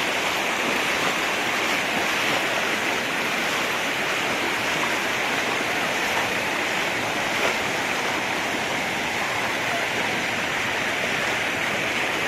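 Muddy floodwater rushing across a road and spilling over its edge, a steady, unbroken rushing.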